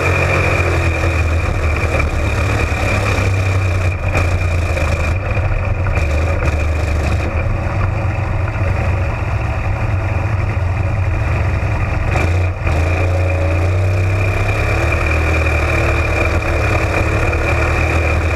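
Onboard sound of a Florida Spec Modified (sling shot) race car's engine running hard on a dirt oval, loud and steady, with a steady high whine over it. The engine sound dips briefly twice, about four seconds in and again past the middle.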